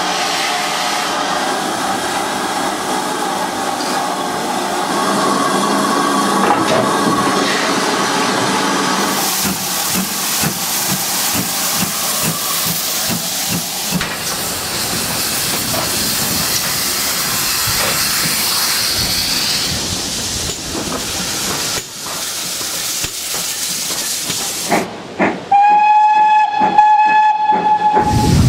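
GWR 4200 class 2-8-0 tank locomotive 4277 hissing steam and working at the platform. Near the end comes a single long blast on a steam locomotive's whistle, one steady tone.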